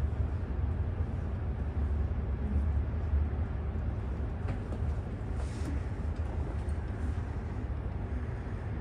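Low, steady rumble of a train's running noise heard from inside the passenger car as it pulls into a station platform.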